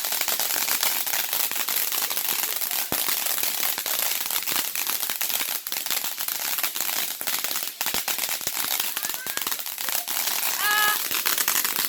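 A consumer firework crackling: a dense, continuous stream of rapid small pops and sputters that keeps going at an even level.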